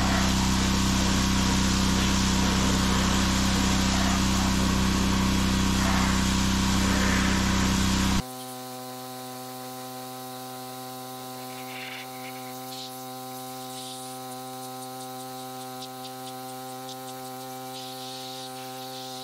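Pressure washer running and spraying the excavator's steel cab, a steady hiss of water over a steady engine-like tone. About eight seconds in the sound cuts off abruptly, leaving a quieter steady hum.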